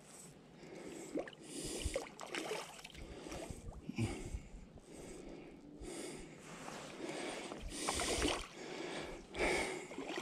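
An angler breathing close to the microphone while straining to play a hard-pulling fish on a fly rod, about one breath a second.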